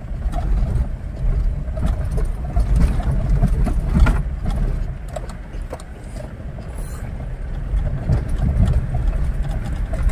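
Cabin sound of an old Mahindra Bolero on a rough dirt track: a low engine and tyre rumble with knocks and rattles as the body jolts over ruts. The sharpest jolt comes about four seconds in.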